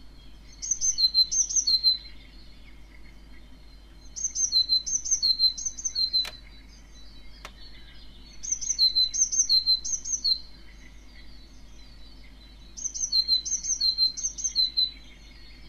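A tit singing: four phrases about four seconds apart, each of three or four repeated two-note calls, a high note then a lower one. Two brief clicks fall between the second and third phrases.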